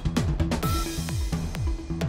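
Electronic news-headlines background music with a pulsing beat of deep bass hits that drop in pitch, sharp percussion and a short tone. A noisy swoosh sweeps through about half a second in.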